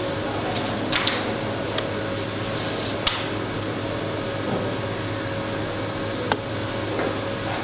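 Steady ventilation hum of a room fan or air-conditioning unit, with a few brief paper rustles about one, two, three and six seconds in as a file's pages are handled.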